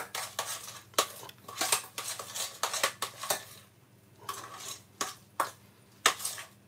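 Metal utensil stirring mashed potato in a stainless steel saucepan, scraping and knocking against the pan's sides in a run of irregular clinks and scrapes.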